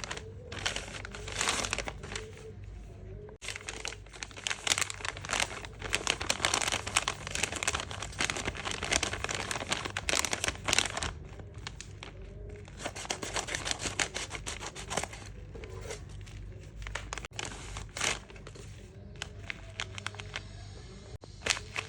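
Blind-bag packaging crinkling and rustling as it is handled, in dense irregular crackles that come and go.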